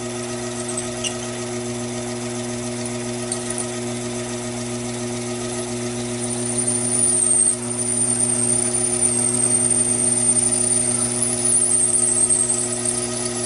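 Taig lathe running steadily, its spindle turning as a twist drill in the tailstock chuck bores into brass stock. About six seconds in a high, wavering squeal from the drill cutting comes in and runs on, while the bit packs with swarf it can't clear; the motor is not bogging down.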